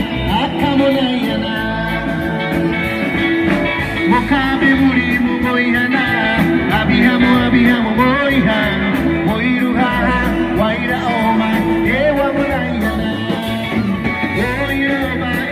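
Live band music through a PA system: a man singing to electric guitar over a steady beat.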